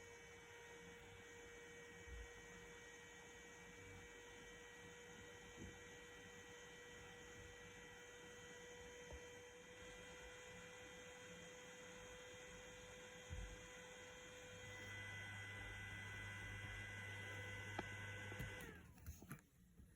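GDSTime GDA4010 40 mm hydraulic-bearing hotend fan running at speed: a faint steady hum with a thin whine. Near the end it is switched off, its tone dropping briefly before it stops.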